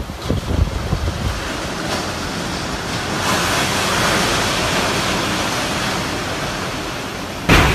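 Typhoon Jebi's wind blowing in a steady loud rush, with gusts buffeting the microphone in the first second or so.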